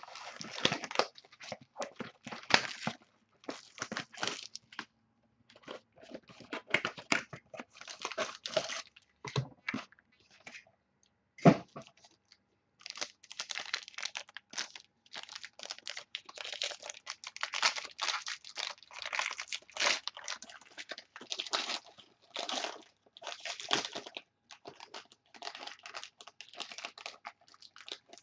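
Trading-card packaging being handled and opened: bursts of crinkling, rustling and tearing wrappers, with a sharp click about eleven and a half seconds in.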